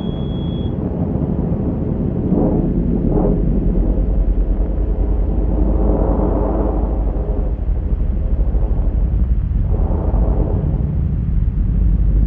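A deep, steady rumble with a rushing noise on top that swells and fades several times.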